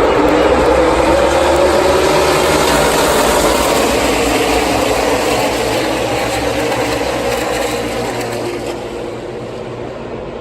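A pack of NASCAR Xfinity Series stock cars passing at full throttle, many V8 engines sounding together with their pitch sliding down as they go by. The sound fades away over the last couple of seconds.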